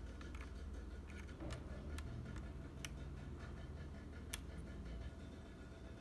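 Small, sharp plastic-and-metal clicks from tweezers working a plate-mount stabilizer housing into a Noir N1v2 mechanical keyboard's plate, a few scattered ones with the sharpest about four seconds in, over a faint low hum.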